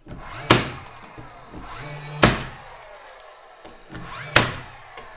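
DeWalt 20V cordless finish nailer firing nails into wooden studs: three sharp shots about two seconds apart, each led in by a short rising whir of the tool's motor.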